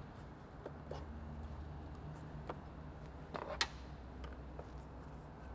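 Scattered light clicks and taps from handling the plastic air intake pipe and tightening its hose clamp with a hand tool, the loudest cluster about three and a half seconds in, over a steady low background hum.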